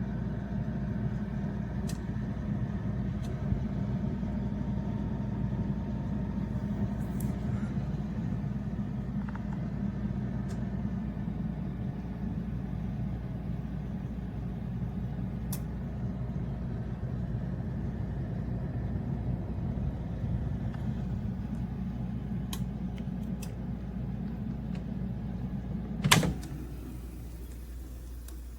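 Air fryer running: a steady motor and fan hum. Near the end a sharp click, after which the hum stops.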